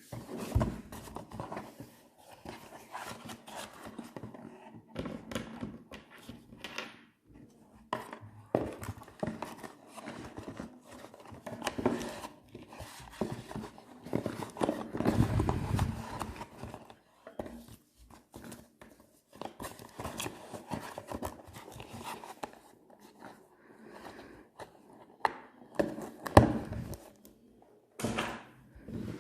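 Handling noise from a mobile phone and its packaging: irregular rustling, knocks and clicks, with a couple of sharper knocks near the end.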